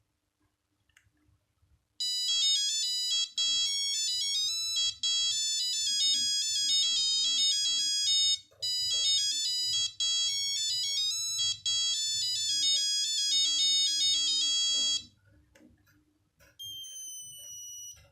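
Nokia 8210 mobile phone playing a monophonic ringtone: a quick melody of single electronic beeping notes with a few short breaks, stopping a few seconds before the end. A single quieter held tone sounds near the end.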